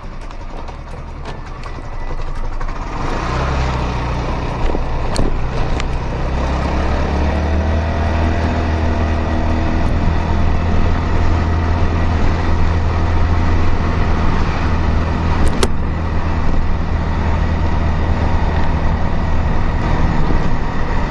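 Scooter engine pulling away from idle about two seconds in, its pitch rising as it picks up speed, then running steadily at cruising speed with road and wind noise.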